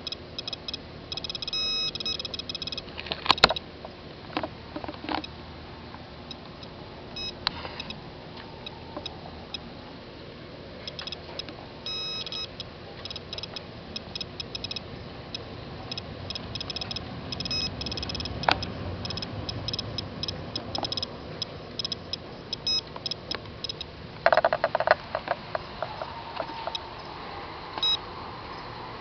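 SOEKS Geiger-counter dosimeter clicking irregularly as it counts particles, at a reading the device flags as a dangerous radiation background, about 3.9 µSv/h. A few louder knocks from handling the device, the loudest about three seconds in and a cluster near the end.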